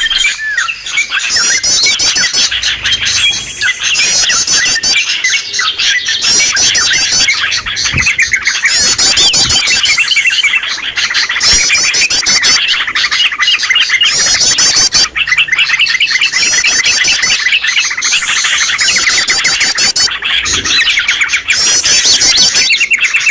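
Bird-lure recording of yellow-vented bulbuls (trucukan) and other small birds calling together: a dense, unbroken chorus of chirps and bubbling notes, with high rapid twittering phrases recurring every second or two.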